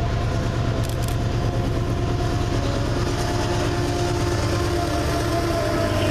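Canadian Pacific diesel-electric locomotive leading a double-stack intermodal freight train past at close range: a steady engine drone with a strong low hum, getting a little louder near the end as the container cars start rolling by.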